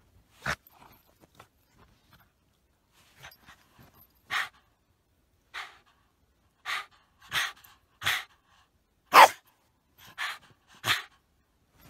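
A dog barking in short, sharp barks, about ten of them at uneven intervals, the loudest a little past the middle.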